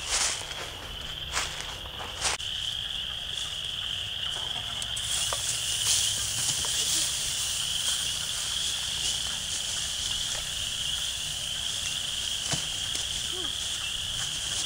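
Frogs calling in chorus, a steady high trill that never lets up. A few crunches of footsteps in dry leaves come in the first couple of seconds. From about five seconds in, a steady hiss from a campfire cooking steak and potatoes in metal pots joins.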